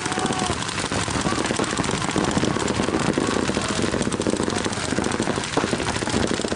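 Paintball markers firing rapidly and continuously from several players at once, a dense, steady clatter of pops.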